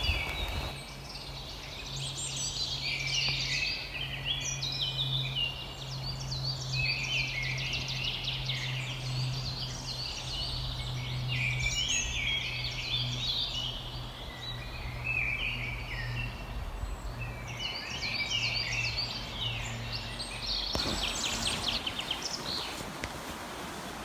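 Songbirds singing, many quick overlapping phrases of high notes, over a steady low hum. About three seconds before the end the song gives way to a plain, even hiss.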